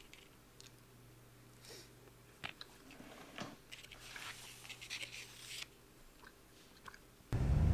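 Faint crunches and clicks of a fork and fingers pressing into crisp bacon on a plate, over a low steady hum. Near the end a much louder vehicle engine rumble cuts in.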